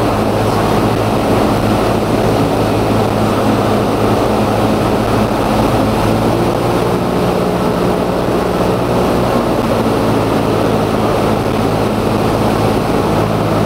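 Cessna 172's piston engine and propeller droning steadily, heard from inside the cockpit with rushing air noise, on final approach to a runway.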